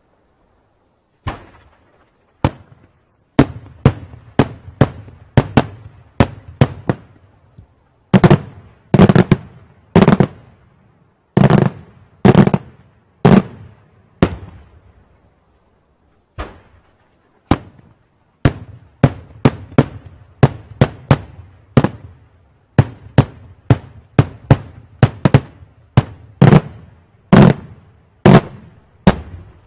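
Daytime aerial firework shells bursting overhead in a rapid, irregular string of sharp bangs, a few a second, each trailing off in a short echo. The barrage pauses for about two seconds halfway through, then resumes.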